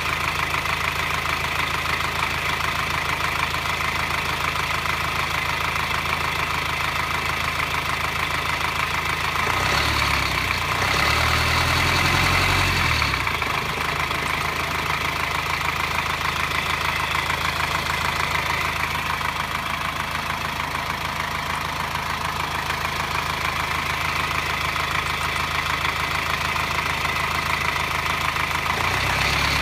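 2009 Subaru Forester's 2.0-litre boxer diesel idling hot with a metallic clatter, revved up briefly about a third of the way in and again near the end. The clatter shows only when the engine is hot at low revs, and its cause is unknown.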